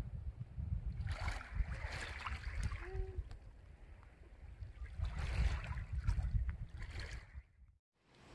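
Wind rumbling on the microphone, with small waves washing onto a pebble shore in two hissing surges, about a second in and again about five seconds in. The sound drops out briefly near the end.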